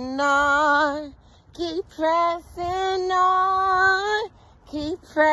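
A woman singing solo and unaccompanied, drawing out long held notes with a slight vibrato. The longest note, near the middle, lasts about two seconds, and a few short notes come near the end.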